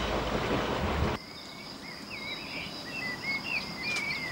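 A rushing noise cuts off suddenly about a second in, giving way to an insect's steady high-pitched trill and small birds singing short warbling phrases.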